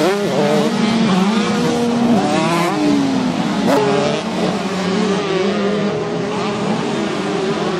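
Several 125cc two-stroke motocross bikes racing, their engines revving up and down as they work through the gears, with several pitches rising and falling over one another.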